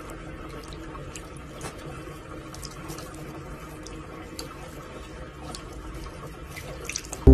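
Tap water running in a steady stream, splashing over a cat's head into a basin, with scattered small drips and splashes.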